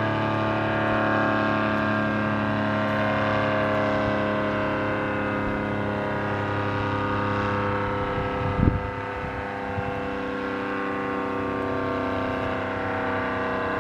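ACA Screamer S-10 outdoor warning siren sounding a steady chord of tones that holds nearly level in pitch. Its broken, sucked-down top lid starves it of air and its motor is wired in reverse, so the rotor spins the wrong way and it isn't very loud. A single dull thump sounds about two-thirds of the way through.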